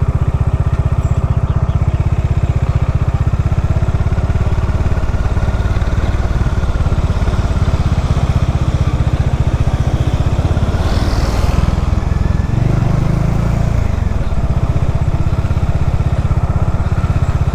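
Bajaj Dominar motorcycle's single-cylinder engine running steadily while riding, with a brief change in the engine note about twelve seconds in.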